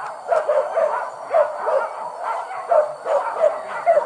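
Hunting dogs yelping and barking in a quick, unbroken run of short high calls, two or three a second: a pack giving tongue on the chase of a wild boar.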